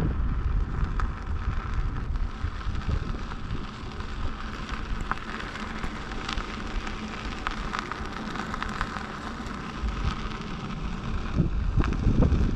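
Wind buffeting the microphone, with scattered crackles from the tyre of an Inmotion V11 electric unicycle rolling over a dirt trail.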